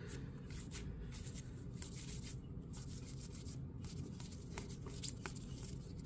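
Stack of baseball trading cards being sorted by hand: faint, irregular slides and flicks as card edges rub past one another.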